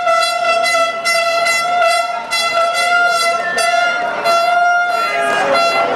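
A horn held in one long, steady, high note through a crowd's chatter and shouting; the voices grow louder near the end.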